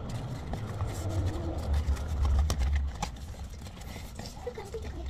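Satin ribbon and a small cardboard favour box being handled as a bow is tied, with light rustles and taps, over a low rumble that swells in the middle and fades after about three seconds.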